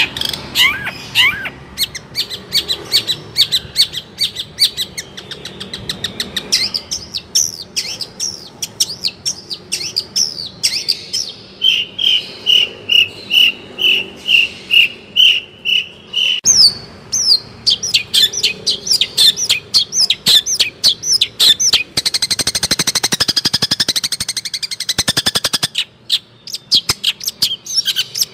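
Long-tailed shrike (cendet) singing a long, varied song of rapid high chirps and whistled notes. Partway through it repeats one whistled note about a dozen times, a little over two a second. Near the end it breaks into a dense, rapid chattering trill.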